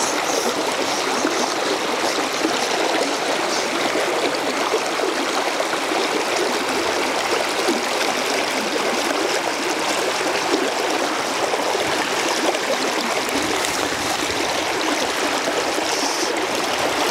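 Shallow river running over a stony riffle: a steady, even rush of moving water.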